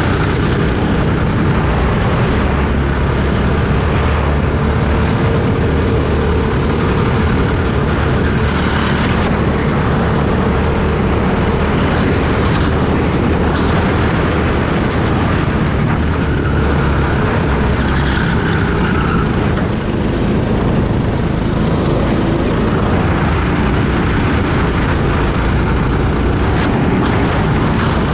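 Go-kart engine running at speed, heard loud from on board the kart, its note rising and falling as the kart drives round the track, with wind and rumble on the microphone.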